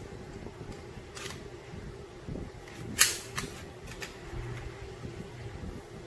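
Sig Sauer P320 pistol clicking as it is taken apart: its slide and takedown parts give a few sharp metallic clicks, the loudest about three seconds in with lighter ones just after. A steady low hum runs underneath.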